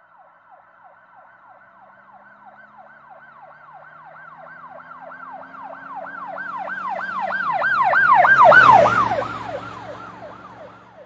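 Emergency vehicle siren on a fast yelp, rising and falling about three times a second, with the vehicle's engine and road noise beneath it. It grows louder as it approaches, is loudest about eight and a half seconds in as it passes, then fades away.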